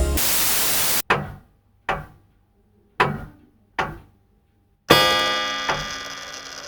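A burst of radio-style static cuts off abruptly about a second in. It is followed by a series of dull thuds, about one a second, and then a louder impact with a long ringing tail near the end.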